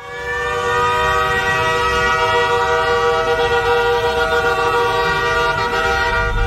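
A long, steady horn blast sounding several tones at once, its pitch rising slightly as it starts, with a low rumble beneath.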